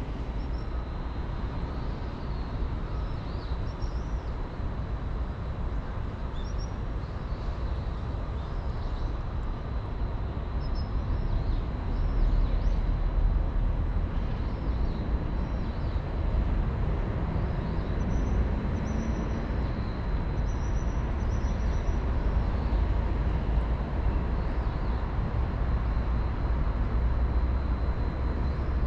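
Outdoor ambience: a steady low rumble with faint, brief high chirps from small birds.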